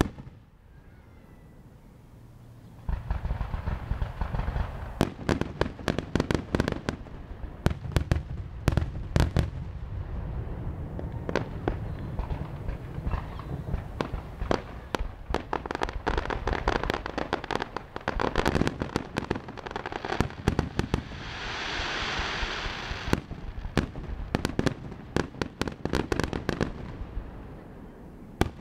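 Fireworks display: after a quiet start, a dense, continuous run of bangs and sharp crackles begins about three seconds in, over a low rumble. About three-quarters of the way through, a hissing crackle swells up.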